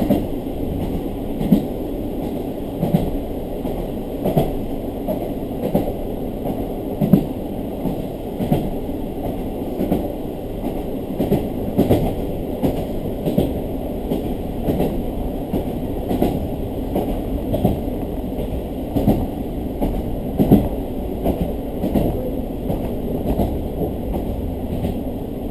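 A diesel local train running along the line, heard from inside the carriage: a steady rumble with a clickety-clack as the wheels cross rail joints, about every second and a half.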